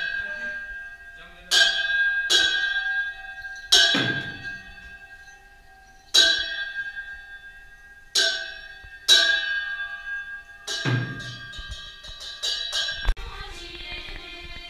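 Percussion for a Bhutanese masked dance: single loud strikes every one to two seconds, each ringing on with a metallic tone, the odd one with a deeper drum thud. Near the end comes a quick run of strikes, then it gives way to other music.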